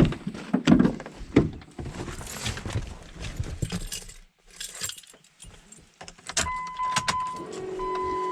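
Keys jangling with clicks and rustling handling sounds, then a steady electronic warning tone starts about six seconds in, and a lower buzzing hum joins it a second later.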